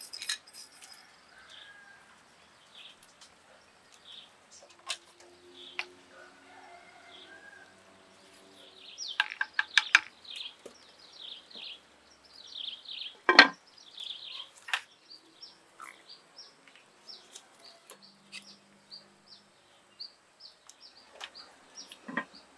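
A small bird chirping over and over with short high calls, coming faster in the second half, along with a few sharp clicks and knocks.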